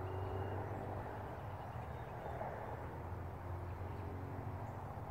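Steady low hum of distant engines, even throughout, with no hoofbeats or voices.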